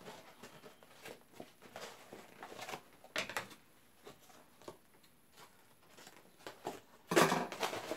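A mailed package being opened by hand: scattered soft rustles, clicks and small tears as the seal is broken, with a louder burst of crinkling packaging about seven seconds in.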